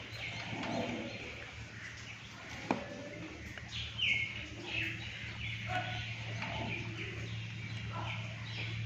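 Birds chirping in short, repeated falling calls over a steady low hum, with a single sharp click near the middle.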